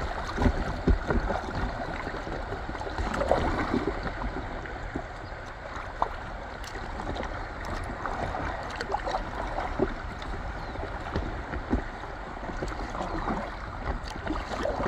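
Fast river current rushing and gurgling around the hull of an inflatable kayak drifting downstream, with frequent short low knocks and thumps.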